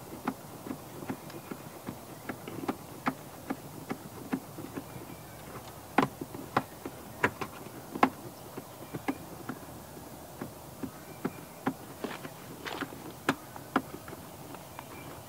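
Irregular clicks and light knocks of hands working on parts under a car's dashboard, a couple a second, the sharpest about six to eight seconds in, over a steady low hiss.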